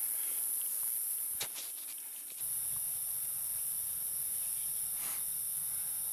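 Steady high-pitched hiss with two faint clicks, one about a second and a half in and one about five seconds in. The background drops slightly just before two and a half seconds, then jumps back abruptly.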